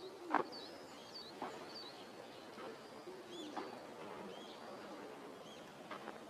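Small birds chirping, short high arched notes repeating every half second or so, with a few short knocks, the loudest about half a second in.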